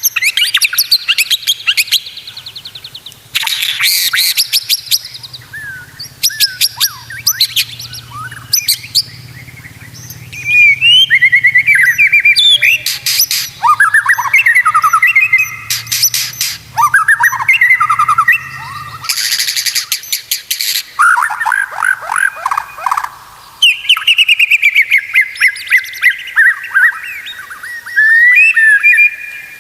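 White-rumped shama (murai batu) singing a loud, varied song in short phrases with brief pauses: gliding whistles, rapid trills and harsh rattling bursts.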